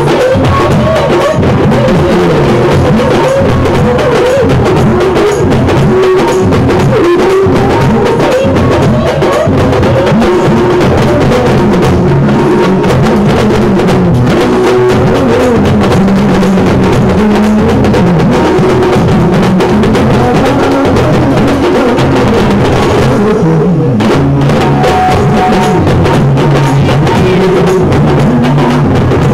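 Loud festival music led by drums: a dense, steady drum beat with a melody over it.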